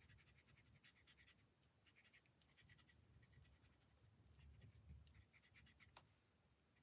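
Faint scratching of a brush marker's tip on card in a series of short colouring strokes, with a light click about six seconds in.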